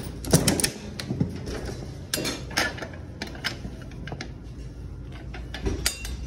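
Coin-operated capsule vending machine being worked: the metal coin-mechanism crank turned with a string of clicks and clanks as a plastic capsule is dispensed, then knocks from the metal delivery flap being pushed open.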